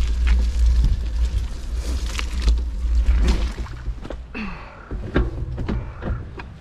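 A bicycle ridden over a rough track, its frame and parts clicking and rattling, under a heavy rumble of wind on the microphone that eases off about four seconds in.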